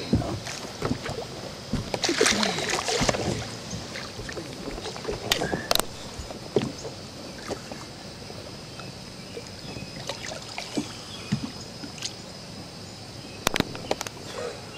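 Water splashing and boat knocks as a large blue catfish thrashes alongside a boat while it is hand-landed by the gill. The biggest splash comes about two seconds in, with scattered knocks and clunks throughout and a cluster of sharp knocks near the end.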